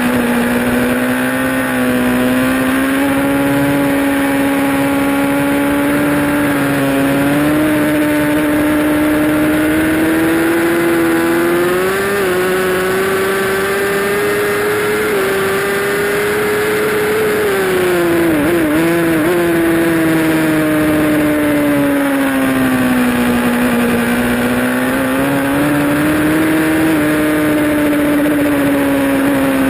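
Honda CBR1000RR's inline-four engine running hard at high revs, heard from on board the bike. Its pitch climbs gradually, wavers briefly about eighteen seconds in, sinks for several seconds, then climbs again.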